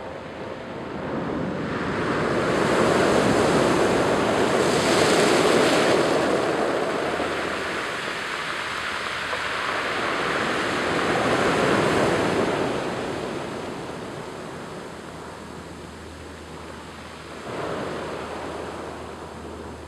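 Surf from the Strait of Juan de Fuca breaking and washing up over a pebble-and-cobble beach in long surges. A big swell builds about a second in, another comes around ten seconds in, and a smaller one near the end.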